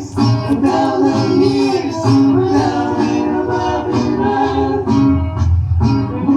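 Reggae song playing with a steady beat of about one pulse a second and a sung vocal line.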